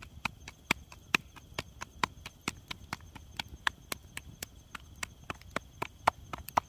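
Roti dough patted and slapped between the palms to shape a flatbread by hand without a rolling pin: an even, quick run of sharp slaps, about four or five a second. Faint steady insect chirring behind.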